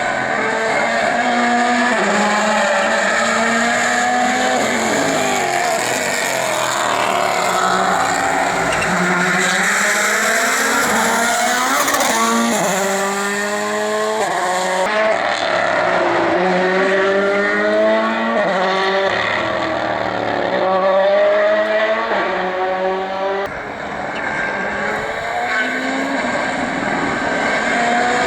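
Rally cars driven hard on a stage, one after another: engines climb in pitch through a run of upshifts and fall back between them, with some tyre squeal.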